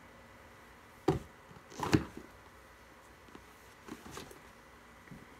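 A few sharp clacks and knocks from a toddler handling hard plastic Duplo toy pieces. The loudest comes about two seconds in, and two lighter ones follow near the four-second mark.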